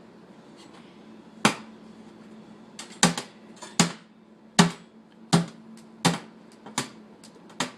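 A dishwasher played as a drum set, struck by hand in sharp knocks and clanks: about a dozen uneven beats, some in quick runs of two or three.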